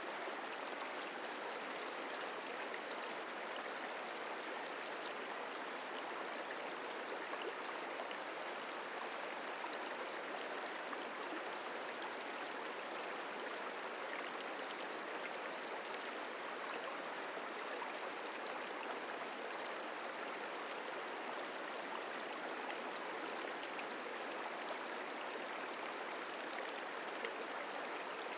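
The Merced River flowing: a steady, unbroken rush of moving water.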